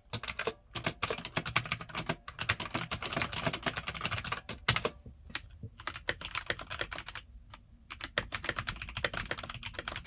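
Fast typing on mechanical keyboards: first on clicky blue switches, then, after a short pause about five seconds in, quieter typing on brown switches without the sharp click.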